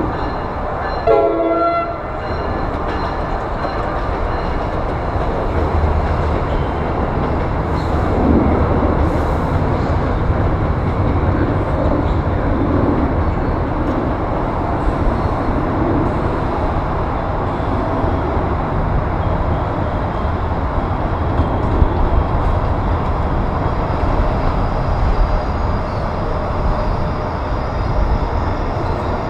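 NJ Transit locomotive-hauled commuter train with multilevel coaches rolling past on a nearby track: a steady rumble of wheels and motors. A short, sharp tone sounds about a second in.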